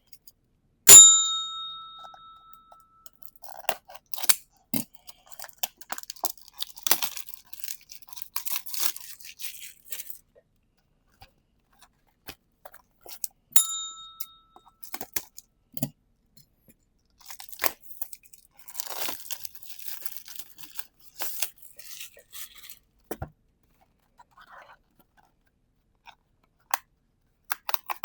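Plastic shrink-wrap on a trading-card booster box being torn open and crinkled by hand, in scattered bursts with pauses. Twice, once near the start and once about halfway, a short sharp ding rings out.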